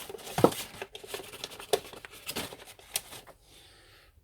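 Handling noise and several sharp plastic clicks as a newly wired UK 13 amp plug is pushed into a wall socket and the socket is switched on. The loudest click comes about half a second in, and the clicks die away after about three seconds.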